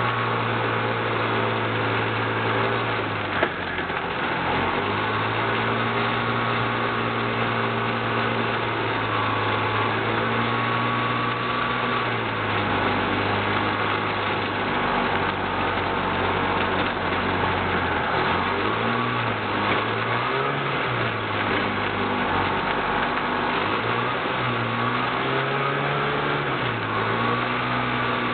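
Himax ultralight airplane's engine and propeller running while taxiing, heard from the cockpit, the engine speed falling and rising several times with a steady rush of propeller wash and wind.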